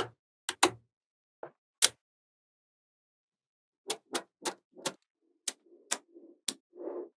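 Small magnet balls snapping together with sharp clicks: two or three near the start, a pause of about two seconds, then a run of about seven clicks, with a soft rattle of balls rolling against each other near the end.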